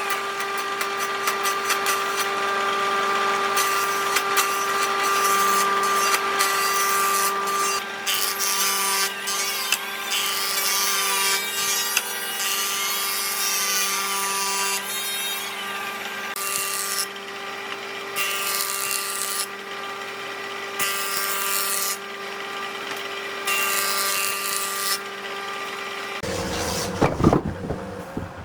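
An electric power tool runs at a steady speed with a constant whine, while bursts of hiss come and go as it cuts into wood. The motor stops about 26 seconds in, followed by a few knocks.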